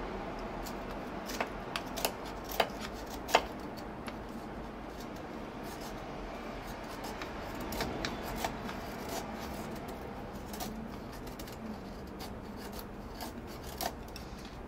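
A knife blade shaving thin curls off a stick of wood: repeated scraping strokes with sharp clicks, the loudest of them in the first few seconds.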